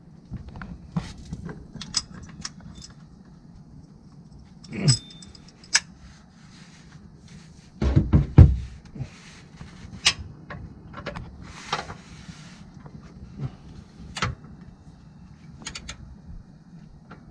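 Scattered metal clicks and clinks of a ratchet, socket and long extension as the oil pan drain bolt is threaded back in and tightened. A dull low thump about eight seconds in is the loudest sound.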